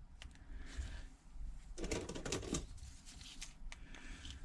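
Small plastic clips being picked up and clamped onto a phone to hold its new back glass, making scattered light clicks and rattles with a brief louder bout of handling about two seconds in.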